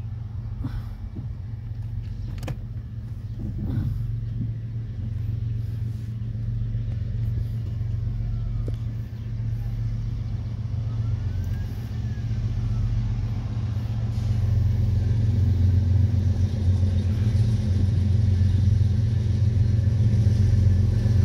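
Canadian National diesel locomotive approaching at the head of a train, its low engine rumble growing steadily louder as it draws near, with a few sharp clicks in the first few seconds.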